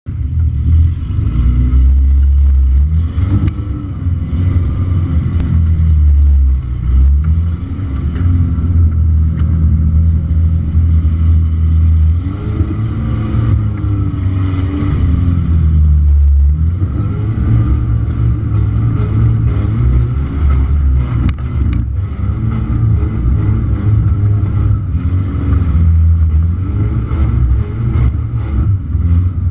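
Suzuki Samurai's engine running at low revs while crawling off-road, the pitch rising and falling with the throttle, with scattered knocks and rattles from the body and suspension over the bumps.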